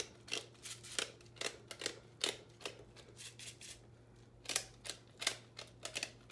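Pepper being dispensed over the dressing: a run of short, sharp clicks, about two to three a second, easing off briefly around the middle.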